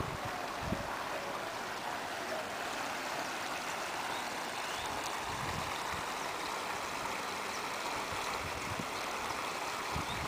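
Steady rush of running water, with gusts of wind rumbling on the microphone now and then.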